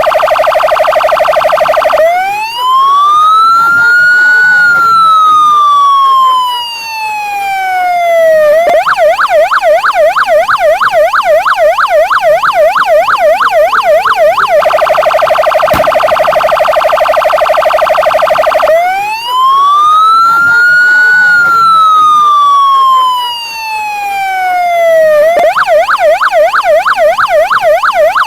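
Electronic police patrol car siren cycling through its tones: a steady tone, then a wail that rises quickly and falls slowly over about six seconds, then a fast yelp warbling up and down several times a second. The cycle plays twice.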